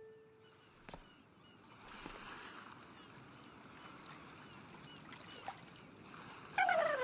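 Soft water lapping at a shore, a gentle hiss. A chime rings out and dies away at the start, and a warbling, wavering call begins near the end.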